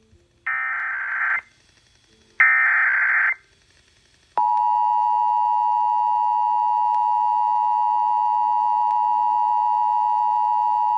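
Emergency Alert System SAME header: two screeching data bursts of about a second each, a second apart, then the EAS two-tone attention signal (853 and 960 Hz sounded together) starting about four seconds in and holding steady. This marks the opening of a required monthly test being relayed.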